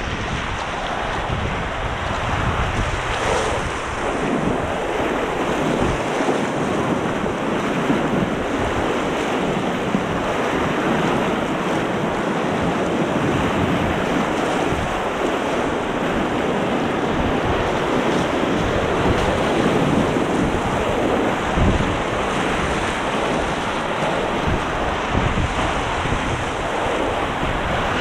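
Whitewater rapids rushing steadily around a packraft riding through them.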